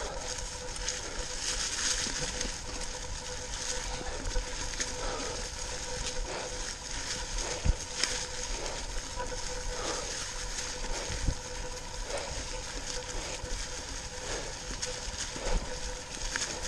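Mountain bike rolling over a trail thick with dry fallen leaves: a steady crunching hiss of the tyres through the leaves, with scattered knocks and rattles as the bike goes over sticks and bumps, and a faint steady hum underneath.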